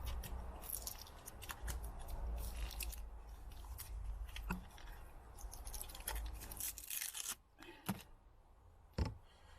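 Small clicks, crackles and snips of hands working with a tire plug repair kit: the sticky, cement-coated plug strip and the kit's tools being handled. The busy clicking runs for about seven seconds, then it goes quieter with a couple of single light knocks near the end.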